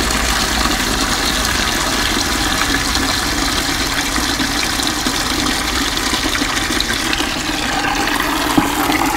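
Water pouring in a steady, splashing stream out of the open anode-rod port of a Suburban RV water heater into a plastic bucket, as the tank drains after the anode rod is unscrewed. A single small knock near the end.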